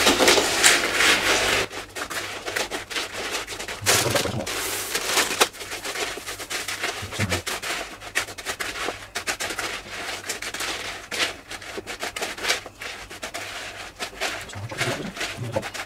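A spoon stirring crisped rice cereal into melted chocolate in a bowl: steady, irregular scraping and rubbing with many small clicks. It is louder for the first couple of seconds and again about four seconds in.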